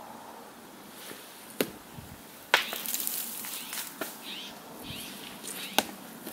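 Stones clacking on a gravel riverbed and gravel crunching underfoot as a person gathers stones to throw: a few sharp clacks, the loudest just before the end, over light crunching from about two and a half seconds in.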